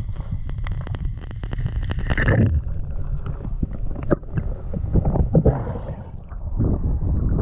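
Underwater camera audio of a diver moving near the seabed: a constant low rumble of water noise with many short clicks and bubbling splashes. A thin steady high tone stops about two seconds in.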